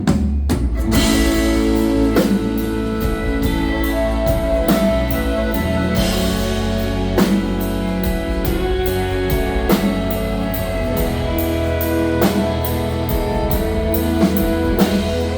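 Live band playing the instrumental opening of a waltz: guitars over a steady drum-kit beat.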